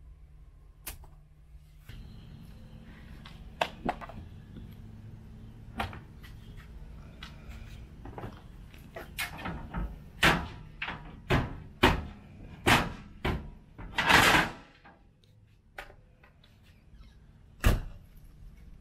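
A string of clicks, knocks and clatters as a small travel trailer is closed up: the entry steps and door of a Riverside Retro trailer being handled, with a longer rattling clatter about 14 seconds in and a single loud knock of the door near the end. A low steady hum sits underneath.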